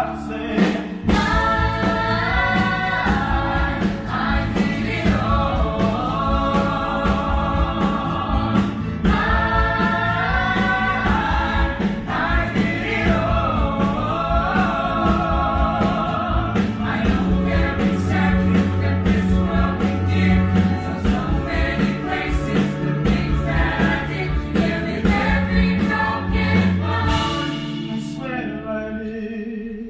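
Live stage-show music: a cast singing together as a group over an accompaniment with a steady beat. The music fades down near the end.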